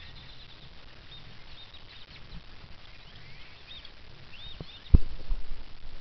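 A flock of grackles calling: many short, rising and falling whistled calls scattered over a steady low background hum. A single sharp knock comes about five seconds in.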